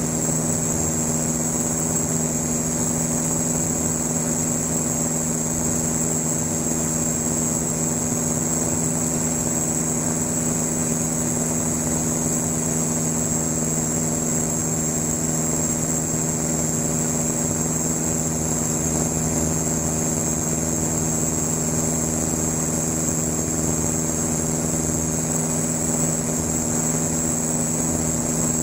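Van's RV-7 light aircraft's piston engine and propeller droning steadily in flight, heard inside the cockpit, with a steady high-pitched whine above the drone.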